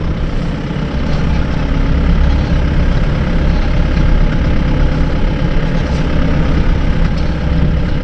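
Motorcycle engine running steadily while riding, a continuous low rumble with road noise.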